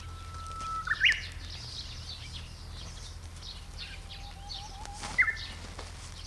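A bird singing two phrases, each a long steady whistle ending in a quick upward flourish, with fainter high chirping behind.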